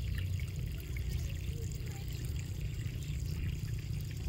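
Steady low rumble of wind on the microphone, with a few faint bird chirps scattered through it.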